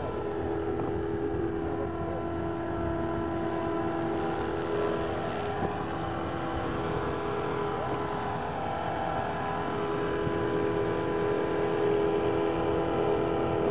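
RC model helicopter hovering low, its motor, gears and rotor making a steady whine that holds a nearly constant pitch, wavering only slightly as it adjusts its hover.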